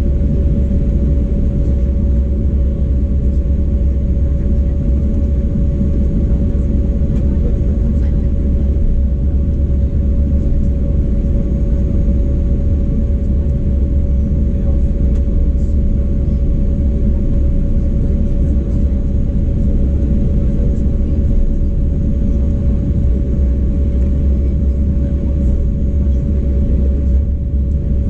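Cabin noise inside an Embraer 195 jet airliner taxiing with its turbofan engines at idle: a steady low rumble with a constant mid-pitched whine over it.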